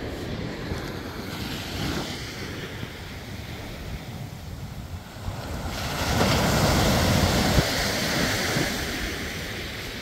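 Surf breaking and washing up the beach. One wave swells up about six seconds in and then slowly fades away, with wind rumbling on the microphone throughout.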